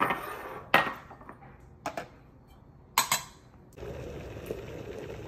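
Small ceramic cupping bowls and a steel scoop clinking against each other and the countertop as coffee beans are weighed out, about five sharp clinks in the first three and a half seconds. Near the end, an electric kettle switched on for the brewing water starts a steady low rushing noise as it heats.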